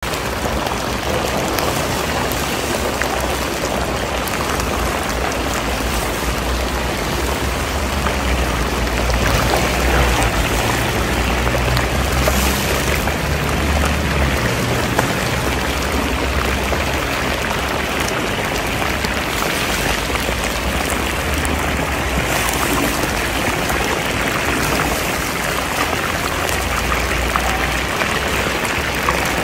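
Chunks of meat deep-frying in hot oil in a very large cooking pot: a steady sizzle with fine crackling, with a low rumble underneath.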